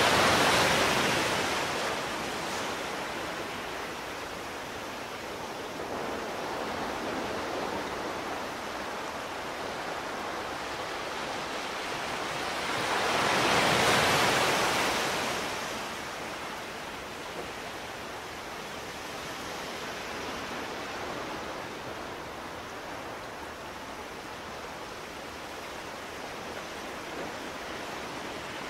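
Muffled underwater rushing of divers' exhaled air bubbles, a steady hiss that swells twice, once near the start and again about halfway through.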